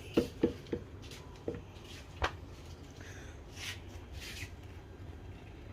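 A few light clicks and knocks in the first couple of seconds, then two soft rustles: handling noise of things being moved about.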